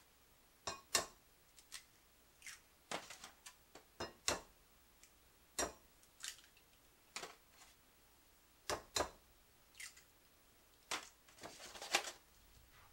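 Eggs being cracked one after another into a glass dish: short sharp cracks and clicks of shell, many in quick pairs. Near the end come a few louder taps as the foam egg carton is closed.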